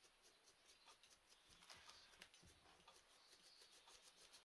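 Near silence, with faint scratching and light taps of a paintbrush working paint over a textured canvas.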